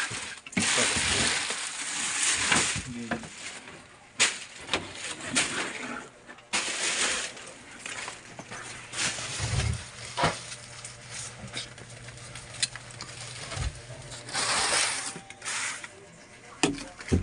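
Rustling and scraping of household clutter being handled and shifted, in short bursts, with a few sharp knocks between them.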